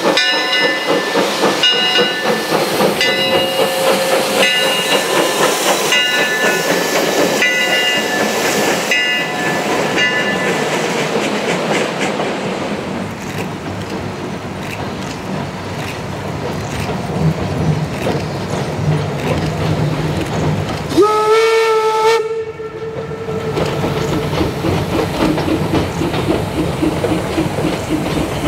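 Steam trains rolling across railway bridges, their wheels clattering rhythmically over the rail joints with some ringing metallic squeal in the first part. A little past two-thirds of the way through, the locomotive's steam whistle blows once, a short blast.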